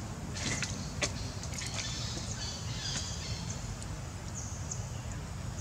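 Outdoor ambience: a steady low rumble, with scattered faint high chirps and a few short sharp clicks.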